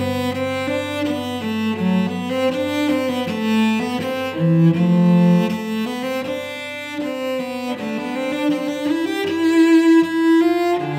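Solo cello bowed, playing a melodic line that moves from note to note, at times sounding two strings at once, over a faint low held note.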